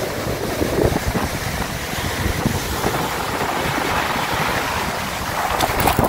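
Rough storm surf breaking and washing up over a pebble beach, a steady loud rush of foaming water, with wind rumbling on the microphone.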